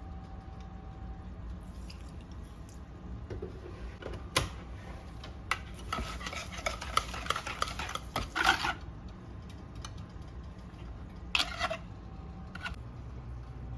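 Kitchen utensils clattering and scraping against dishes and pans, with a few separate knocks, then a dense run of clatter for a couple of seconds in the middle and a short burst near the end. A low steady hum sits underneath.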